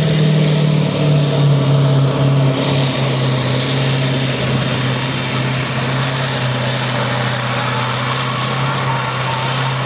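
Farm tractor's diesel engine running under heavy load while pulling a weight-transfer sled, a loud steady drone whose pitch sags slightly in the first few seconds and then holds.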